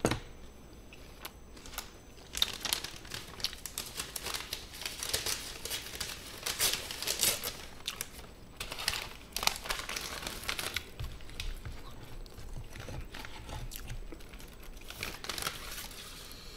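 Plastic takeout-food packaging crinkling and tearing in irregular bursts as it is handled and opened.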